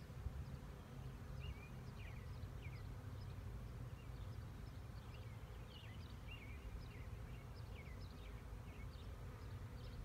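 Faint outdoor ambience: scattered short bird chirps over a low, steady rumble.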